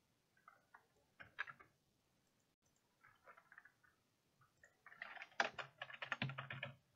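Faint computer keyboard typing and mouse clicks: scattered single keystrokes and clicks, then a quick run of typing about five seconds in.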